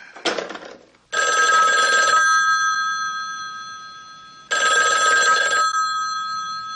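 Telephone bell ringing in a film's soundtrack: two rings about three and a half seconds apart, each ringing for about a second and then fading away slowly.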